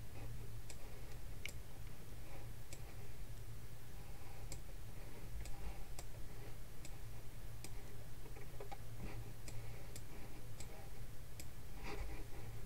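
Computer mouse clicking: sharp single clicks at irregular intervals, roughly one a second, over a faint low hum.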